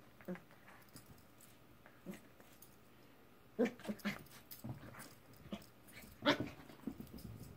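A puppy making short, sharp vocal sounds while play-fighting: a cluster of calls about three and a half to four seconds in, and a single loudest one a little past six seconds, with faint knocks of scrambling paws between them.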